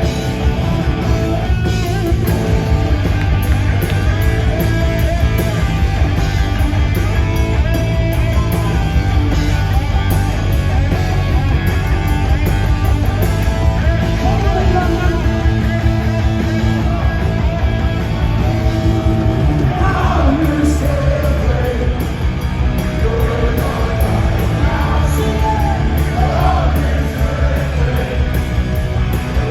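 Live punk rock band playing loud through a venue PA, recorded from the crowd: distorted guitars, bass and drums, with shouted lead vocals coming in over the last third.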